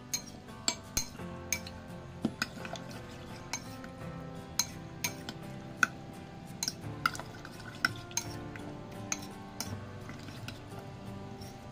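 A metal spoon mixing floured fish strips in a bowl, clinking irregularly against the bowl's sides and rim, with scraping between the strikes. Soft background music plays underneath.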